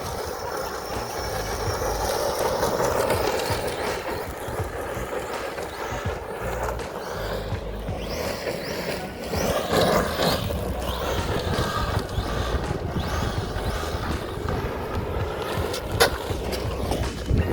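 Traxxas Sledge RC monster truck, run on 6S, driving and its tyres rolling and scrabbling over rough ground, under background music. One sharp knock about sixteen seconds in.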